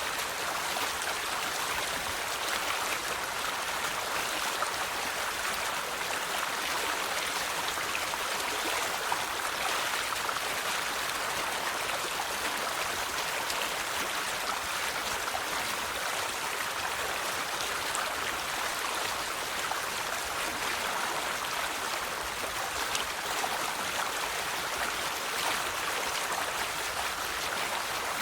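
River water flowing steadily, a continuous rushing with fine splashing and bubbling.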